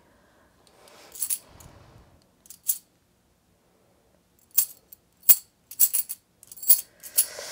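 Brass divination coins clinking together in the hand and dropping onto the table: a string of short, sharp jingles at irregular gaps, coming quicker near the end.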